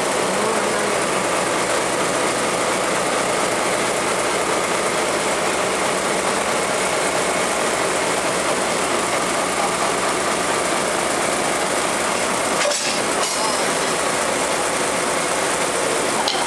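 Diesel locomotive engine running steadily as the locomotive eases up to a passenger coach for coupling, with a single sharp knock late on as the couplers meet.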